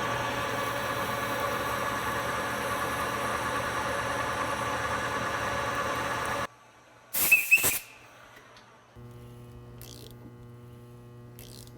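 A shop machine tool running steadily, cut off abruptly after about six and a half seconds. A brief sharp squeal follows, then a steady electrical hum.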